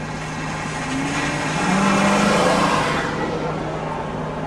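A vehicle passing close by: its road noise swells and fades over about two seconds, heard from inside a stopped car over a steady low hum.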